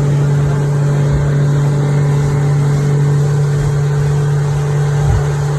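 Fishing boat's engine running steadily under way, a constant low drone that holds the same pitch throughout.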